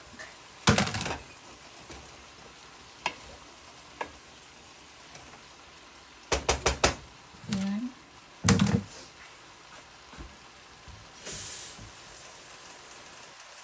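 Chicken frying in a hot pan with a steady sizzle, while a metal utensil knocks against the pan: single knocks, then a quick run of four about halfway through, and a loud one a little later.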